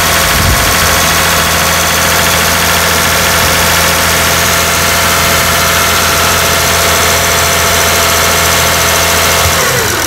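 Toyota 1MZ-FE 3.0 L V6 idling on a cold start with its engine coolant temperature sensor unplugged. The engine runs poorly and practically stalls, the sign of the computer losing the sensor's signal.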